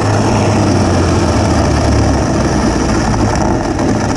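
DIY electric snowmobile with an ME1115 electric motor under way on snow: a steady low hum from the drive, under a loud even rush of track and wind noise. The hum weakens about three seconds in.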